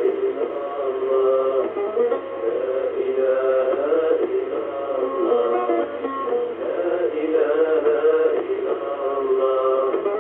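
Sung church music from a Polish midnight mass, heard through a longwave AM radio receiver, so it sounds narrow and muffled, with no highs.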